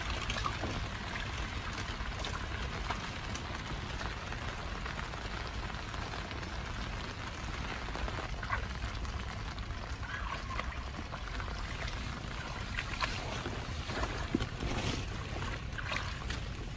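Steady rain falling on puddled water and wet grass, with scattered single drops standing out now and then.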